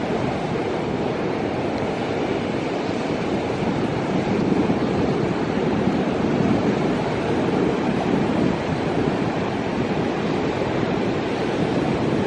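Strong hurricane wind buffeting the microphone: a steady low roar with no break, covering everything else.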